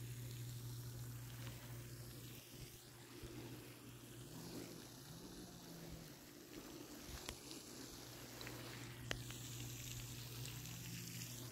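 A boat's motor runs steadily with a low hum, over the hiss of water moving past the hull.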